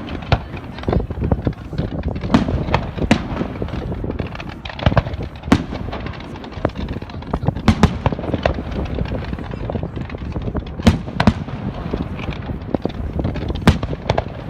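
Fireworks display: a dense run of sharp bangs at irregular intervals over a continuous rumble and crackle.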